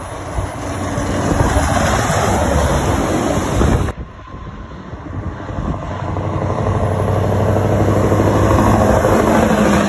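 Heavy lorry diesel engines running as the trucks pull along a wet road, with tyre noise on the wet surface. The sound cuts off suddenly about four seconds in, then a Scania R-series tractor unit hauling a low-loader grows louder as it draws near, loudest near the end as it passes.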